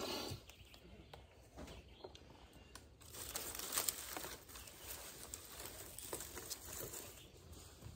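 Faint rustling and clattering of dry sticks and twigs being piled and pushed together over a freshly lit tinder bundle. It opens with a short rasp, and from about three seconds in there is a dense run of small cracks and snaps.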